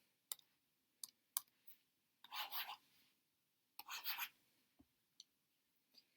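Faint clicks and rubbing, handling noise: four sharp clicks in the first two seconds, then two short scratchy rubbing sounds of about half a second each, followed by a few light ticks.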